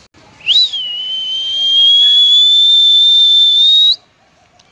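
A loud whistle: one long high note with a quick upward flick at the start. The note is then held for about three seconds, slowly rising in pitch, and cuts off suddenly.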